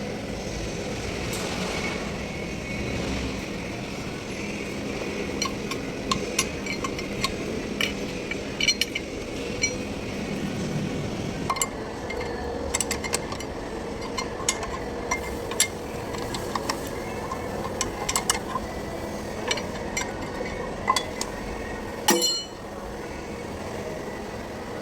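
Scattered metallic clinks and taps of hand tools on metal tractor parts, with a louder knock near the end, over a steady background hum.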